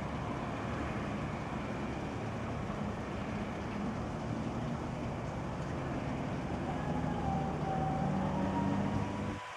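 John Deere 250D articulated water truck's diesel engine running steadily as the truck moves slowly. A faint higher whine joins about seven seconds in, as the water cannon starts spraying. The low rumble cuts off abruptly near the end.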